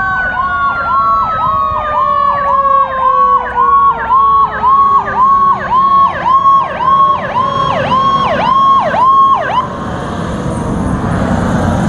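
Emergency vehicle sirens: an electronic siren cycling quickly up and down, about twice a second, over a mechanical siren, likely the fire engine's Federal Q2B, winding down with its tone falling steadily. The electronic siren stops about ten seconds in, leaving vehicle rumble.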